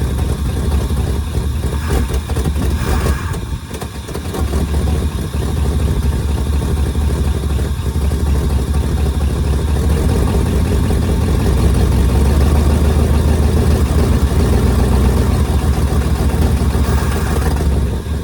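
Ford Thunderbird engine running at idle after being brought back to life, briefly dipping about four seconds in and then running on steadily. It runs with vacuum leaks.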